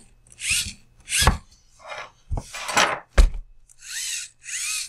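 A small TRX-4M RC crawler being handled and turned over on a wooden bench with gloved hands: a series of short rubbing and scraping noises, with one sharp knock about three seconds in.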